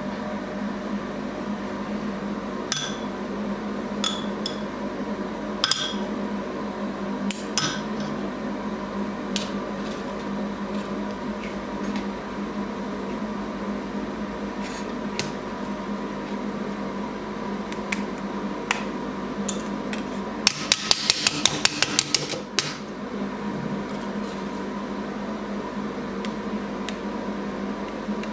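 Sharp metallic clicks and taps as the laser-cut brass sheet and its hold-down magnets are handled and pendants are pushed out of the sheet, with a quick run of about ten clicks about two-thirds of the way through. Underneath is a steady hum from the idle fiber laser machine.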